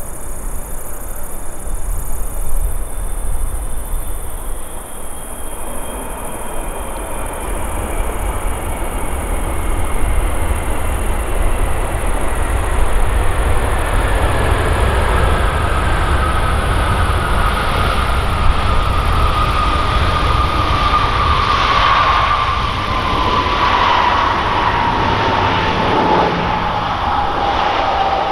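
Boeing 777F's GE90 turbofan engines during the landing roll-out: a steady jet rumble and hiss, with an engine whine that falls slowly in pitch as the freighter slows on the runway.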